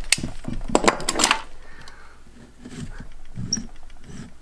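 Metal clinks and clatter of locking pliers being worked on and pulled off the seized drive end of an old tractor starter motor, as the stuck armature is forced to turn. Several sharp clinks come in the first second and a half, then softer handling knocks.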